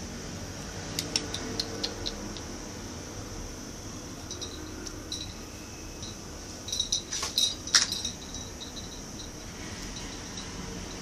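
Small cage birds chirping: scattered short high chirps and clicks, with a quick burst of sharper, louder chirps about seven seconds in.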